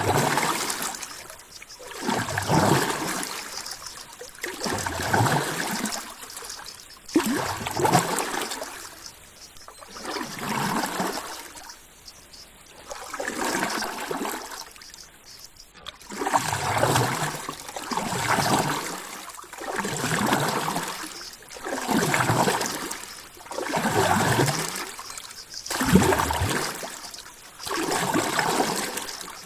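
Ocean water sounds swelling and ebbing in an even pulse, about once every two and a half seconds.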